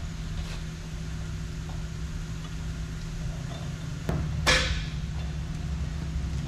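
An engine running steadily at a constant speed while the D10R's heavy steel track is lifted on chains; about four and a half seconds in, one loud sharp metal clank as the track shifts.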